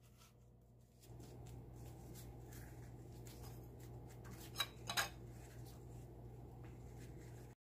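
Kitchen handling sounds while a breaded chicken piece is dipped in beaten egg: faint rubbing and light clicks over a steady low hum, with two sharp clinks of a fork against the ceramic plate about halfway through. The sound cuts off abruptly near the end.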